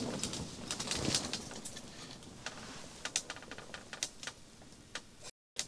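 Faint scattered clicks and rustling, with a quick run of clicks about three seconds in.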